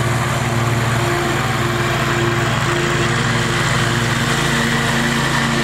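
Scag Freedom Z zero-turn riding mower's engine running steadily as the mower drives across the lawn, mowing.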